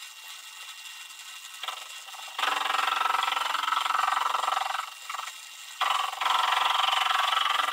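Metal lathe spindle running with a steady hum, then a loud, harsh scraping about two and a half seconds in as a high-speed-steel tool bit is fed into a spinning bar of tough EN24T steel. The scraping breaks off near five seconds and starts again about a second later; the tool's edge is being ground away rather than cutting cleanly.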